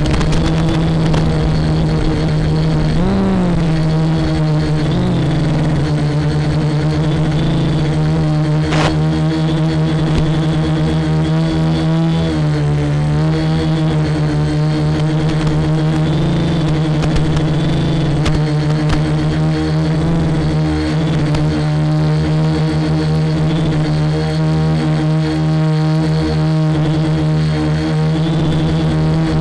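Quadcopter's electric motors and propellers whining in a steady drone, the pitch bending up and down a few times as the throttle changes.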